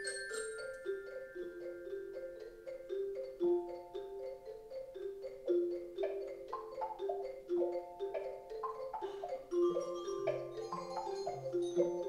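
A gentle, bell-like melody on pitched mallet percussion: a repeating figure of struck notes. A lower bass part joins near the end.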